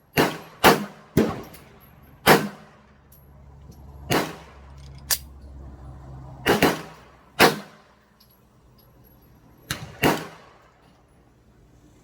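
Handgun firing .40 S&W rounds: about ten sharp, loud shots at uneven intervals, some in quick pairs, each with a short echoing tail.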